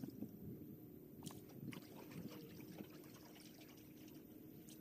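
Faint splashing and dribbling of a canoe paddle dipping in pond water as an aluminum canoe is paddled, with a few soft clicks.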